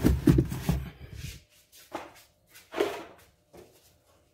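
A bagged folding chair being handled and shoved into a car's spare-tire storage well: a second or so of fabric rustling and knocking against the hard plastic floor, then a few separate soft knocks.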